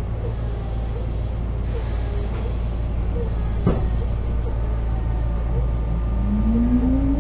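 Tobu 9000 series motor car running with a steady low rumble, with one sharp click about three and a half seconds in. From about six seconds its chopper-control traction motor whine rises steadily in pitch as the train gathers speed. This is the summer-only low-speed chopper tone that resembles a Hankyu 2200 chopper car or a JR 201 series.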